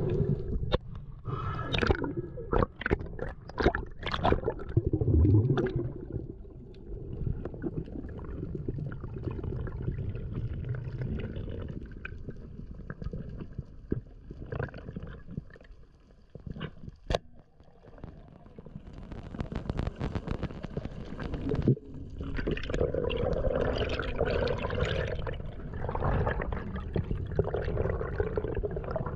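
Water gurgling and sloshing around a spearfisher's camera as he swims, with a run of knocks and clicks at the start and a single sharp click about seventeen seconds in. Rougher splashing noise builds in the last third.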